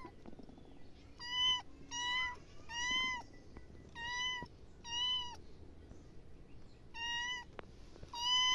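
Tabby kitten meowing over and over: seven short, high-pitched meows about a second apart, with a longer pause after the fifth.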